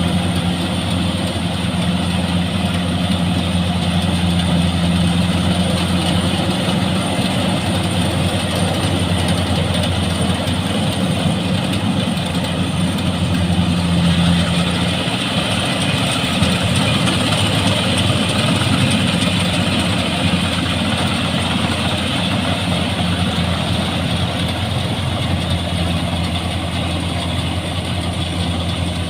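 Rice combine harvester running steadily: an even engine hum with a constant rushing mechanical noise over it.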